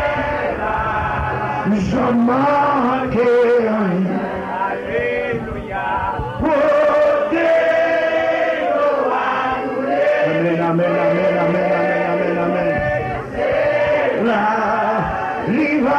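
A man singing a slow worship hymn, with long held notes that glide between pitches.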